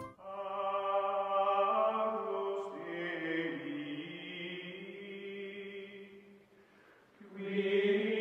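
Outro music of sustained chant-like voices holding long notes. It fades almost away about six seconds in, then swells back up near the end.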